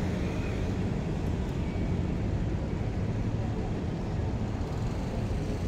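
Steady city traffic noise at a busy intersection: a continuous low rumble of cars and scooters on the road.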